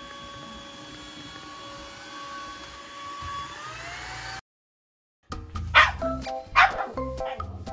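Vacuum cleaner running with a steady hum whose pitch rises just before it cuts off. After a brief gap, a black shiba inu barks twice over background music; this dog barks at the vacuum cleaner.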